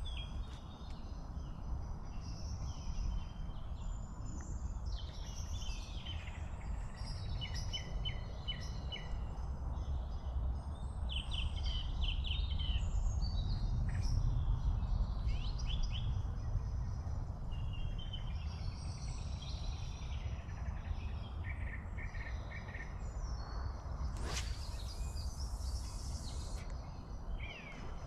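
Small birds chirping and trilling over a steady low rumble, with a brief hiss lasting about three seconds near the end.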